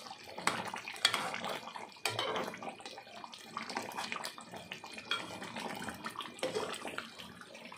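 Metal spatula stirring and scraping beef curry in an aluminium pot, with irregular clinks against the pot over the wet bubbling of the simmering sauce.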